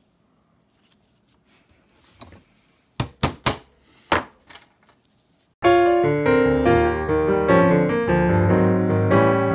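A few faint clicks, then a quick run of about five sharp knocks about three seconds in. From a little past halfway, piano music plays and is the loudest sound.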